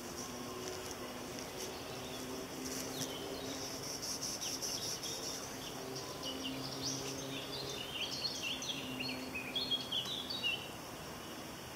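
Songbird singing in woodland: quick, repeated chirping phrases that grow dense and loudest from about six seconds in until shortly before the end, over a steady high hiss of outdoor background noise.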